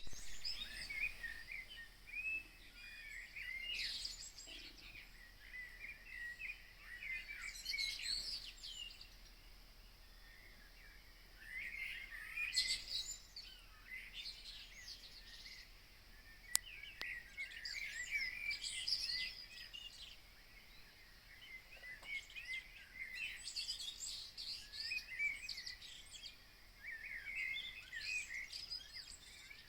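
Songbirds singing in the pre-dawn chorus: bursts of quick, varied chirps and trills every few seconds, with one sharp click about halfway through.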